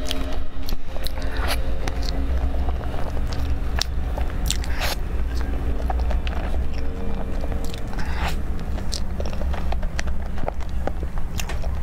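Close-miked chewing of a soft cream-filled crepe roll cake, with wet mouth clicks and lip smacks at irregular intervals, over a steady low hum.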